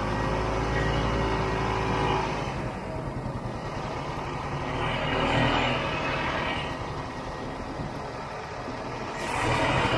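Snowmobile engine running while being ridden along a snow trail. The throttle eases off a little over two seconds in and comes back up twice, about halfway through and near the end.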